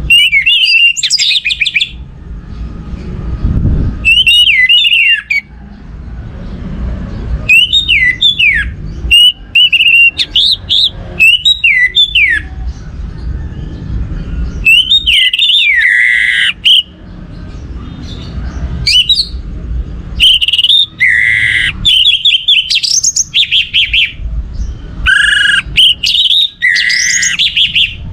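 Orange-headed thrush (anis merah) singing loudly in quick, varied phrases of rising and falling whistled notes, broken by short pauses.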